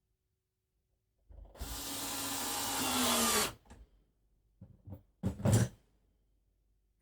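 Power drill running for about two seconds, its pitch rising slightly, then stopping. It follows with a few short bursts near the end, the last the loudest, typical of driving screws when fitting a door handle and latch.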